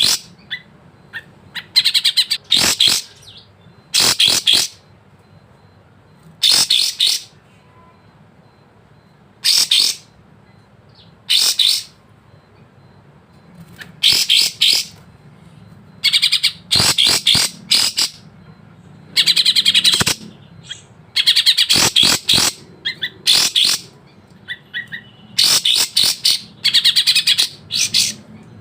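A kapas tembak songbird singing loud, bright, high-pitched phrases, about a dozen short bursts, each half a second to a second or so long, broken by short pauses, over a faint low hum.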